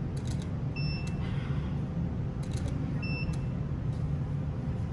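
A camera's short high beep, about a second in and again about three seconds in, and quick clusters of shutter clicks, just after the start and about two and a half seconds in, over a steady low hum.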